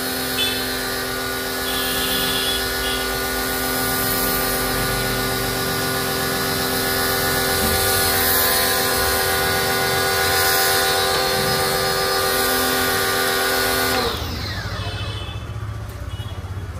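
Electric pressure washer's motor and pump running with a steady whine, its spray hissing onto a car roof. The machine cuts off suddenly about three seconds before the end.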